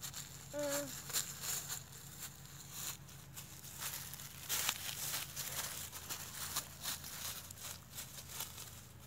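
Dry fallen leaves crackling and crunching under small footsteps, an irregular run of crisp crackles. A brief child's vocal sound about half a second in.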